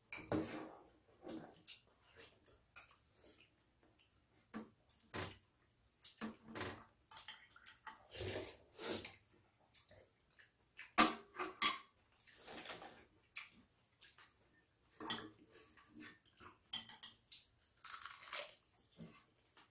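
Metal spoons and chopsticks clinking and scraping against ceramic bowls in irregular, scattered clicks, with some chewing between them.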